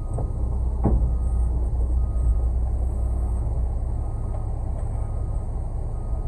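Concrete mixer truck's diesel engine running steadily with a low rumble, with a single short knock about a second in.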